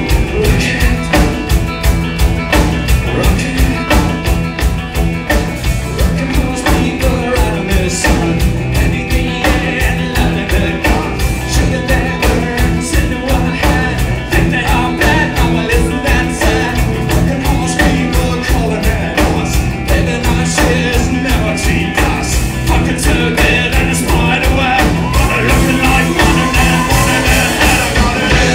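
Rock band playing live, a drum kit keeping a steady driving beat under guitars, with singing.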